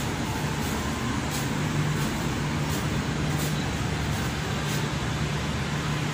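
Steady road-traffic noise with a low hum underneath.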